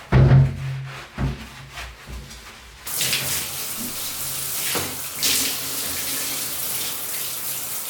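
A few low thumps, then water starts running steadily about three seconds in, like a tap running into a sink.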